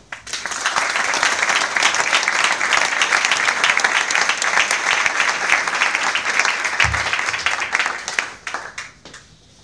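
A roomful of people applauding, starting right at the beginning and dying away over the last second or two. A dull low thump sounds about seven seconds in.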